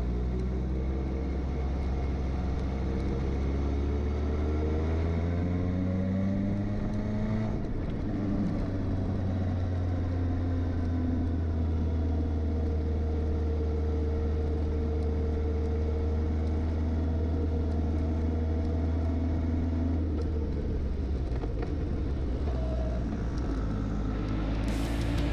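Suzuki GSX 750 motorcycle engine running on the move: the engine note climbs as it accelerates for several seconds, drops at a gear change about seven seconds in, then holds fairly steady at cruising speed.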